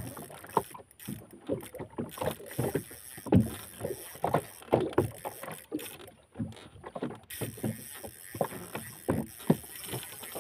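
Water slapping against the hull of a small fishing boat in irregular splashes and knocks, two or three a second.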